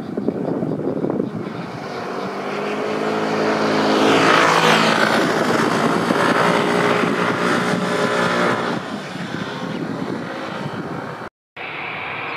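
ATR 72-600 turboprop engines and propellers at climb power: a rushing drone carrying a steady hum of several even tones, which swells and then fades as the aircraft climbs away. Near the end the sound cuts out for a moment and gives way to a steady rushing noise.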